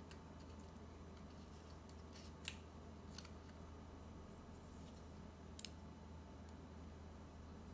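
A few faint small clicks of a screwdriver and metal parts as a laptop's fan and heat-sink screws are freed and the heat sink is handled, over a steady low hum.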